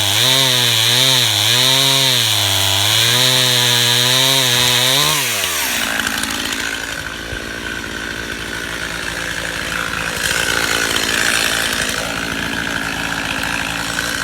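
Stihl MS291 two-stroke chainsaw with a 20-inch bar cutting up through a log from underneath, its engine pitch wavering under load. About five seconds in, the throttle is let off and the pitch falls quickly to a steadier, lower running sound for the rest.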